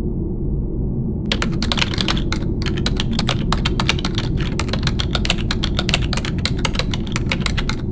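Rapid, irregular clicking like keyboard typing starts about a second in and runs on with short pauses, over a steady low rumble.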